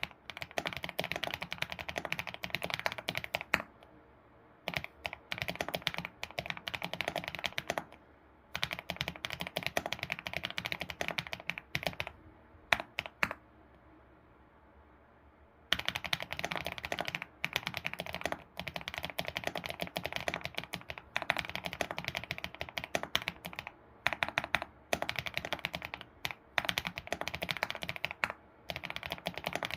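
ABKO computer keyboard being typed on quickly, keystrokes clacking in dense runs broken by short pauses, with a lull of about three seconds around the middle.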